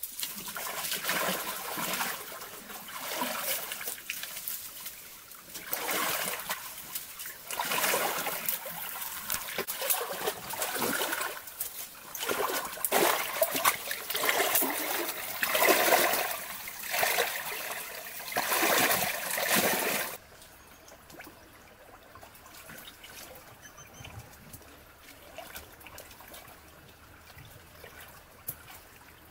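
Water splashing as legs wade through a shallow stream, in uneven surges every second or two. About two-thirds of the way through it cuts off abruptly to the quieter, steady trickle of the running stream.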